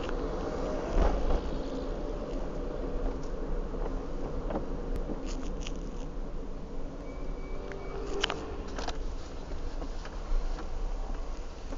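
Car engine running at low speed with road rumble, heard from inside the cabin as a steady buzzing hum. A few light clicks come about halfway through.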